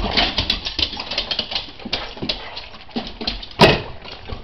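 Excited three-legged beagle demanding her breakfast: a rapid run of short clicks and scuffles as she skitters about on a hardwood floor, with one loud, sharp bark about three and a half seconds in.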